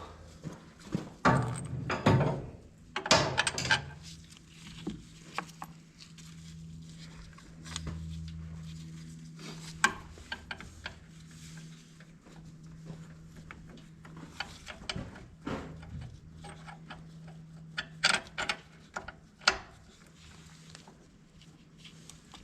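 Irregular clinks and knocks of hand tools on metal parts while a corn planter wheel hub is being worked on during a bearing change. A steady low hum runs behind them for most of the time.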